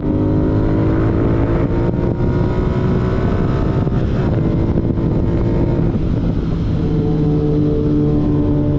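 Royal Enfield Continental GT 650's 648 cc parallel-twin engine under way, its pitch climbing as it accelerates, falling back about four seconds in, then holding fairly steady. A noisy rush of wind and road sits under the engine.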